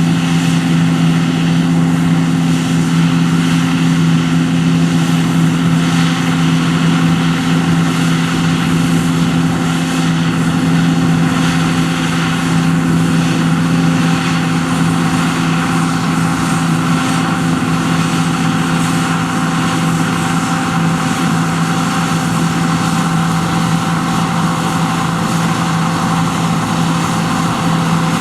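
John Deere T560 combine harvester running steadily at working engine speed, a constant mechanical hum that holds one pitch throughout.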